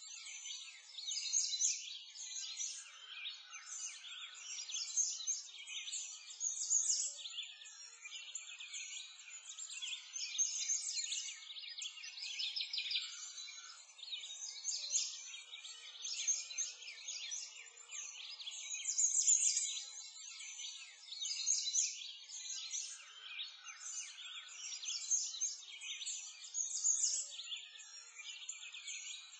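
A dense chorus of songbirds chirping and twittering, all high-pitched, with many overlapping calls and nothing low beneath them.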